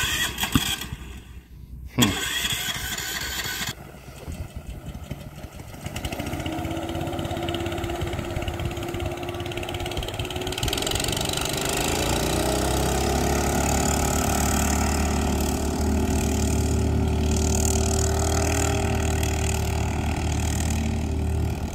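Harbor Freight Predator 459cc single-cylinder engine on a Mud Skipper mud motor, started in the first few seconds and then running steadily. About twelve seconds in it is throttled up, its pitch rising and then holding as the 12 ft jon boat comes up on plane.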